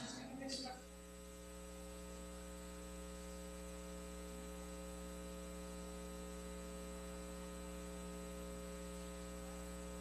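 Steady electrical mains hum, a buzz of many evenly spaced tones, with the tail of a spoken phrase in the first second.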